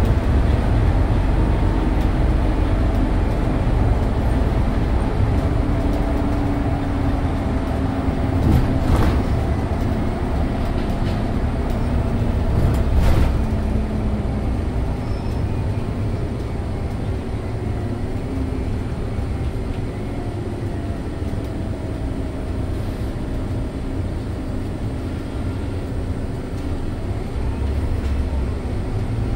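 Cabin noise of a Scania OmniLink city bus driving at speed: a steady low rumble of engine and road noise, with a faint whine that slowly drifts in pitch. Two sharp knocks come near the middle.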